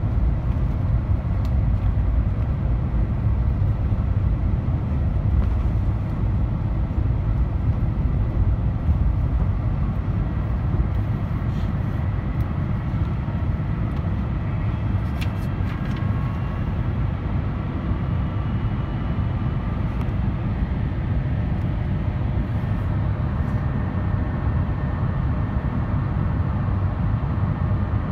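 Steady airliner cabin noise from a window seat beside the wing of an Airbus A350-900: a low rumble of airflow and the Rolls-Royce Trent XWB engines during descent, with faint high engine tones coming and going in the second half.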